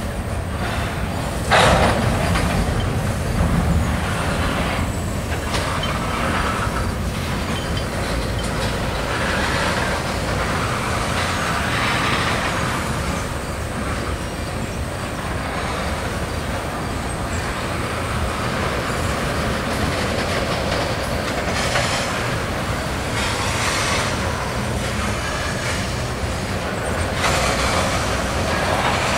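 Freight train tank cars rolling past: a steady rumble of steel wheels on rail, with a sharp clank about a second and a half in and recurring brief surges of higher wheel noise.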